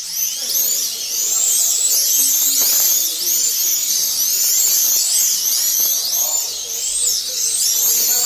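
Electric motors of a pack of 1/32-scale Eurosport slot cars racing together, launching at once and then making many overlapping high-pitched whines that rise and fall over and over as the cars speed up and slow down around the track.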